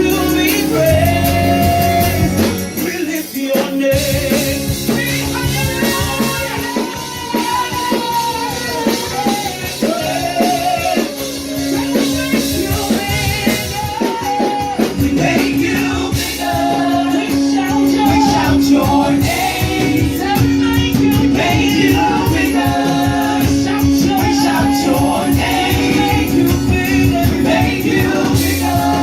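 Live worship band playing a gospel song, with singing over instruments and a steady drum beat.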